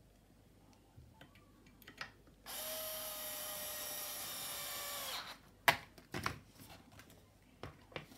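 Small cordless electric screwdriver running for about three seconds, driving a screw tight into the brake housing cover plate of a stroller wheel hub, its pitch dropping slightly as it stops. Then a few sharp knocks.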